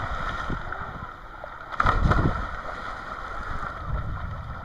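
Water sloshing and splashing around a small boat in the rain, with a louder burst of noise about two seconds in.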